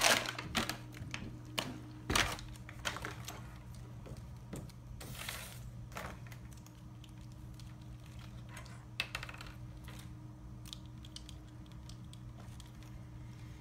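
Plastic handling sounds: an IV fluid bag's plastic overwrap crinkled and torn open, with scattered clicks and a brief tearing rustle about five seconds in. After that come sparser clicks as the bag's port is handled and spiked with the IV administration set.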